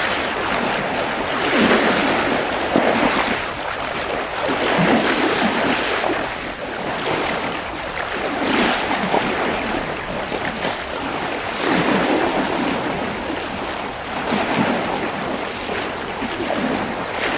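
Water washing and splashing, swelling and easing in uneven surges every second or two, like small waves breaking on a shore.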